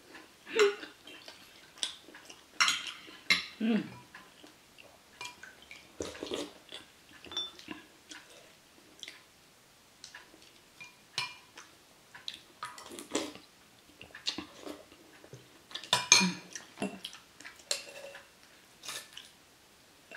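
Spoon and chopsticks clinking and scraping against plates and bowls while eating, in irregular short taps with a few louder clusters.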